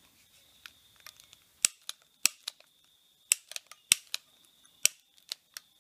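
Repeated sharp clicks of a long utility lighter's trigger, about a dozen in irregular bursts, as it is sparked at the hole in a jar lid to light fuel vapour.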